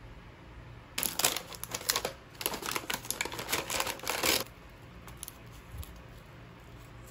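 Plastic packaging of a roasted seaweed snack pack crinkling and crackling as it is handled and a seaweed sheet is pulled out of its tray. It comes in two spells from about a second in, with a short break between them, and stops a little past the middle.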